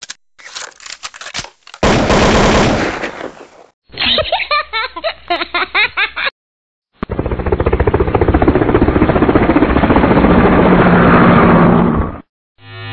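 Rapid machine-gun fire in several cut-together bursts, with gaps between them. The longest is a steady burst of fast, even shots lasting about five seconds in the second half. In the middle stretch a high voice rises and falls over the shots.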